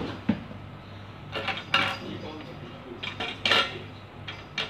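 Hard parts of a model helicopter kit clattering and knocking against a glass tabletop and a metal tin as they are handled: a few scattered clinks and rattles over a steady low hum.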